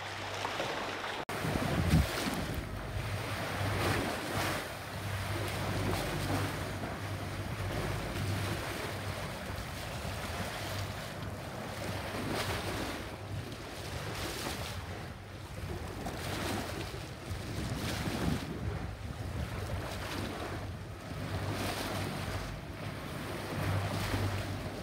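Water rushing and splashing along a sailing catamaran's bow as it moves through the sea, with wind buffeting the microphone and a low steady hum underneath. A brief dropout about a second in is followed by a loud low thump.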